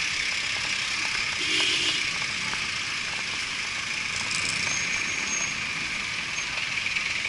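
Busy street traffic: passenger jeepneys and cars running and driving past, over a steady hiss of road noise.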